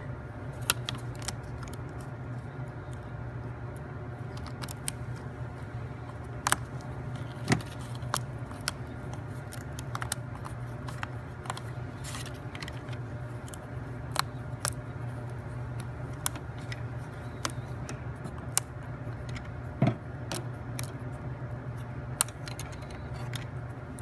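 Small laser-cut plywood parts being pushed out of their sheet, giving irregular sharp snaps and clicks, a few louder ones among many light ones, over a steady low hum.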